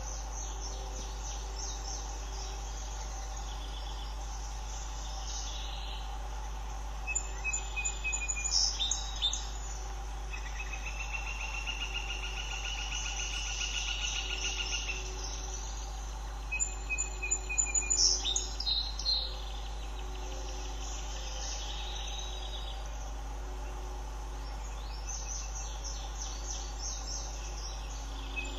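Wild birds calling, with two bursts of high chattering song, one about a quarter of the way in and one past the middle. Between them a buzzing trill runs for about five seconds, all over a constant low hum.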